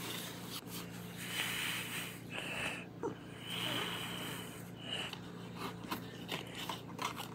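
Breathing through a ventilator-style face mask, air hissing through it in several pulses, over a steady low hum.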